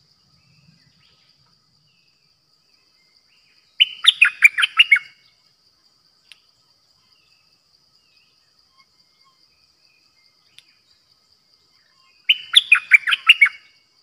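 Caged decoy bulbul (the Thai 'dok taeng' bird) singing two short phrases of about six quick, sharp falling notes each, the first about four seconds in and the second near the end.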